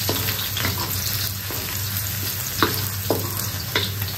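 Shallots, garlic and ginger sizzling in a little hot oil in a wok as they are stirred, with a few sharp taps and scrapes against the wok in the second half. The aromatics are being sautéed until soft and fragrant.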